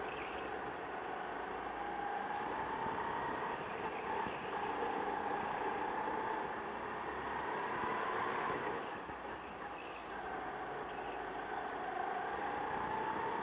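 Go-kart engine heard onboard, its pitch rising and falling as the kart speeds up and slows through the lap, with a dip about nine seconds in and a climb again near the end.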